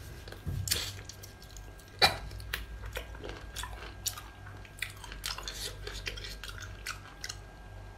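Close-up eating sounds of someone biting and chewing a whole sea cucumber: wet smacks and clicks at irregular intervals, the sharpest about two seconds in.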